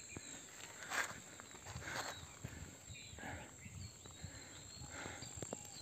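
Quiet rural outdoor ambience with faint, scattered rustles and crunches, about one a second.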